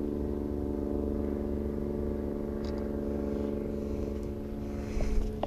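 A motor running steadily, a drone of several held tones, with a few soft knocks near the end.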